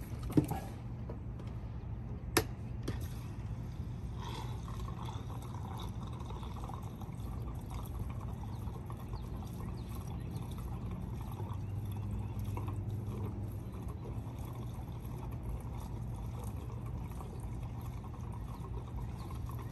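Gasoline pouring from a gas can into a Predator 2000 portable generator's fuel tank, topping it off. Two sharp knocks come in the first few seconds, then a steady pour.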